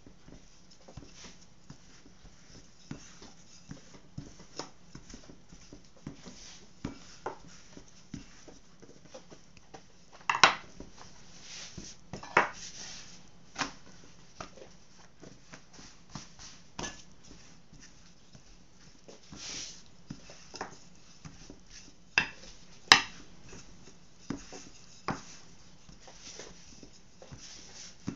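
Wooden rolling pin rolling out pizza dough on a floured worktop, with irregular light knocks and clicks as it works the dough. A few louder knocks come about ten to thirteen seconds in and again near twenty-three seconds.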